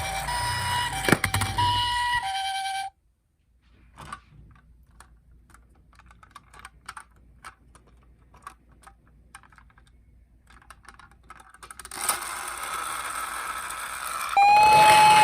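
Toy ambulance minicar's electronic two-tone hi-lo siren, cutting off abruptly about three seconds in. Then a long run of small plastic clicks and rattles as the toy cars are handled, a steady rushing noise, and in the last second a louder siren starting on one held tone.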